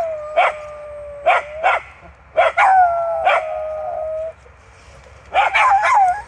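Several dogs on leads barking and yipping at a deer in sight, with long, drawn-out whining cries held between the barks. The barks come in bursts, with a short lull about two-thirds through before another burst near the end.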